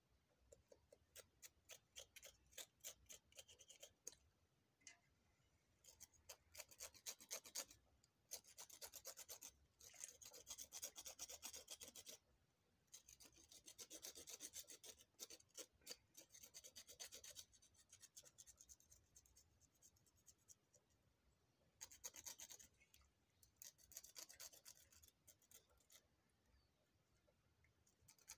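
Feathers being pulled by hand from a scalded hen's carcass: faint spurts of quick scratchy rubbing and tearing strokes, several a second, stopping and starting with short pauses.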